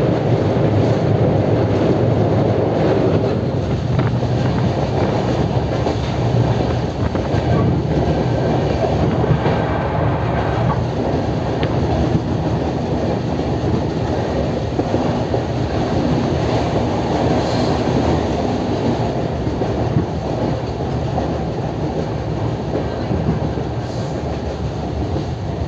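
Running noise of a moving LHB passenger coach: a steady rumble with occasional clicks from the wheels on the track.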